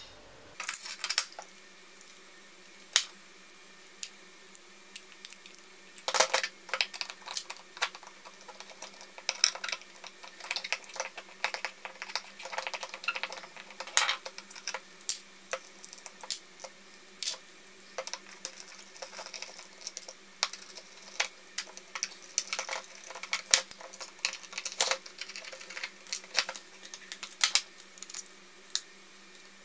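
Scattered clinks, taps and scrapes of metal hard-drive parts and shards of a shattered glass platter being picked up and set down on a wooden table, with a screwdriver, over a faint steady hum.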